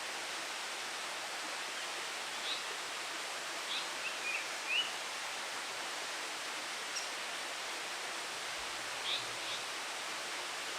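A Japanese paradise flycatcher fledgling giving short, high call notes. There are a few scattered single chirps and a quick pair near the end, over a steady background hiss.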